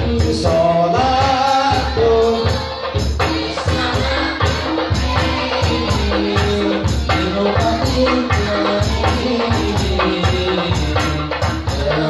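Hadrah ensemble of hand-beaten frame drums (rebana) and a large bass drum playing a steady, driving rhythm, with high jingling accents. A voice sings a devotional melody over it.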